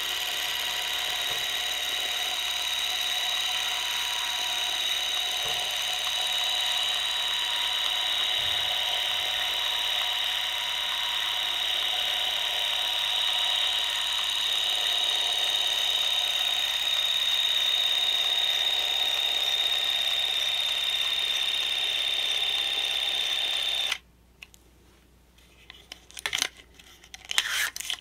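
ELMO 8-V spring-wound 8 mm cine camera running: a steady, high mechanical whir of its clockwork drive for about 24 seconds, which stops suddenly as the wound spring runs down. Near the end the spring is wound up again with the side crank, a string of ratcheting clicks.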